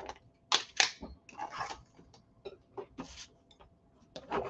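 Cardstock being handled on a plastic scoring board: a few short, soft scrapes and rustles of paper, with a bone folder rubbing along the card near the end.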